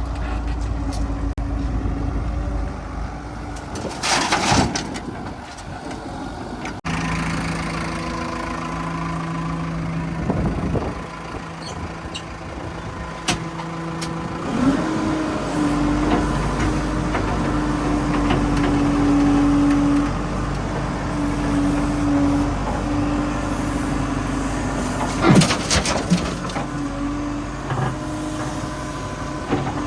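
Heavy diesel machinery engines running at work loading soil, their note shifting a few times. Two short hissing bursts come through, one early and one near the end.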